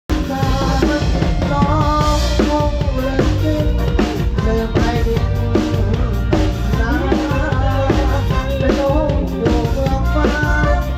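A live band playing a Thai three-cha (sam cha) dance beat, with the drum kit to the fore: a steady bass drum with snare and rimshot strokes under a melody line.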